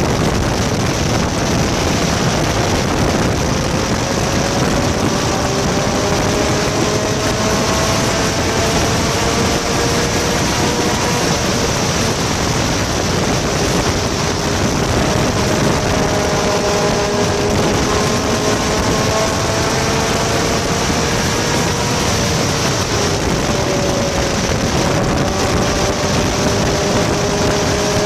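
Engine of an open vintage sports car running at speed, heard from its cockpit, its note slowly rising and dropping as the driver accelerates and lifts, under a steady rush of wind across the open car.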